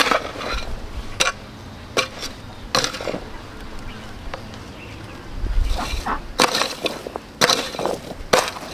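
Irregular sharp knocks and clatters, a few spaced out at first, then coming more often after a quieter middle stretch.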